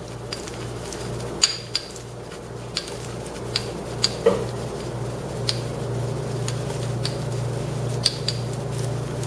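Scattered small sharp clicks and ticks from a glass bottle being rubbed with ice along a candle-heated score line, as the thermal-shock crack starts to run. A steady low hum runs underneath.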